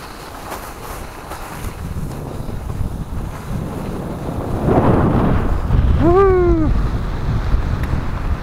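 Wind rushing over an action camera's microphone while skiing downhill, with skis sliding on snow; the rushing grows louder about halfway through. About six seconds in, a short vocal call rises and falls in pitch.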